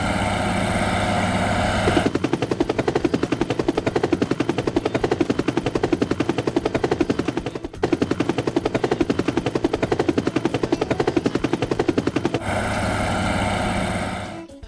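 Machine sound effect: a steady engine-like hum, then rapid, evenly spaced pulsing for about ten seconds, then the steady hum again near the end.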